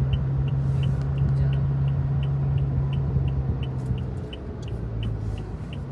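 A car engine running under road noise, heard from inside the cabin as a steady drone that drops in pitch and level about four seconds in. A light, quick ticking about three times a second runs alongside it.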